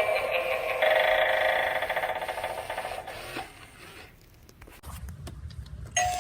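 Halloween eyeball doorbell playing its electronic sound, a wavering pitched tone that stops about three seconds in. A few faint clicks follow, and a new doorbell tone starts just before the end.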